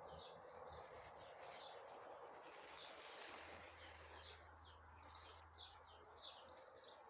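Small birds chirping: many short, high chirps come and go over faint, steady background noise. A low hum joins about three seconds in.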